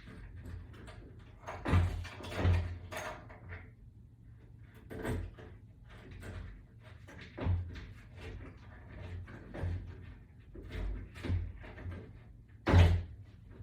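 Irregular knocks, clunks and clicks of a wall-mount bracket and its screws and hardware being handled during fitting, the loudest knock near the end.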